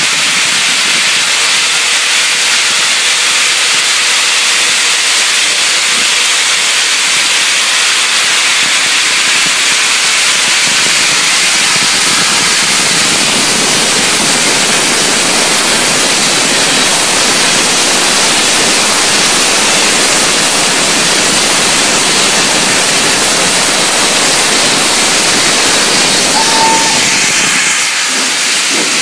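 Steam locomotive No. 85 Merlin venting steam: a loud, steady hiss that eases slightly near the end.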